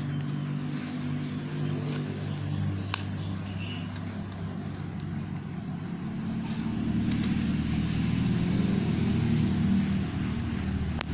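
A motor vehicle's engine running, a steady low hum that grows louder in the second half and stops abruptly at the very end.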